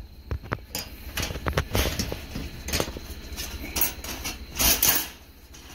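Wire-mesh live animal trap rattling and clinking as it is handled and carried: irregular metallic clicks and knocks, with a louder cluster near the end.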